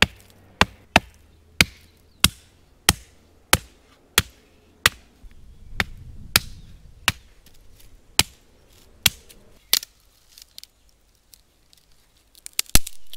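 A hand-held stone striking a dry, hollow branch lying across a rock, about fifteen sharp knocks at a steady pace of roughly one and a half a second, to split the wood lengthwise. After a pause there is a louder double crack near the end as the branch is worked apart.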